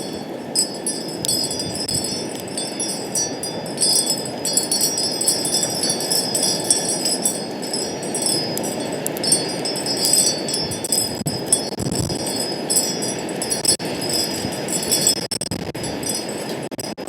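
Wind chimes ringing continually, many overlapping high tones struck at irregular moments, over a steady low rush of wind.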